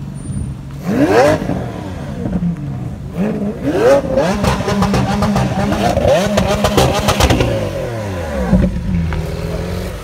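Lamborghini Aventador S's naturally aspirated V12 revving in several quick blips, its pitch rising sharply each time, with a burst of rapid crackling in the middle. It then settles to a steady idle near the end.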